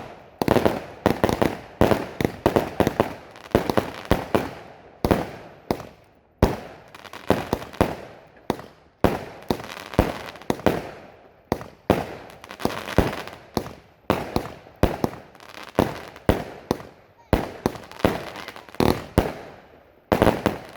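Fireworks going off in a rapid, irregular string of sharp bangs, several a second at times, each trailing off in a short echo.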